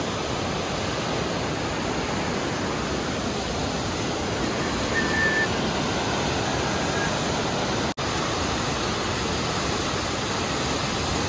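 White-water rapids of the Lohit River rushing below, a steady, even roar of fast water. The sound drops out for an instant about eight seconds in.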